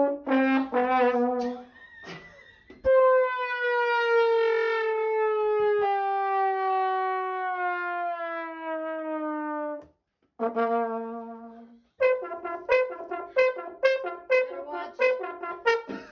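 A brass instrument plays a few short notes, then one long note that slides slowly downward in pitch for about seven seconds, then a quick run of short detached notes.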